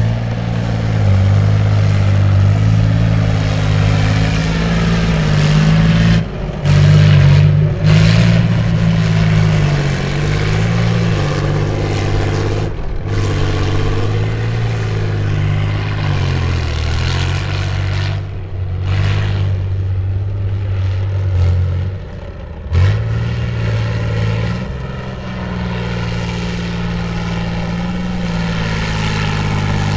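BMP-1 infantry fighting vehicle's V6 diesel engine running hard under load in loose sand, its note rising and falling as it is revved. The sound breaks off abruptly several times.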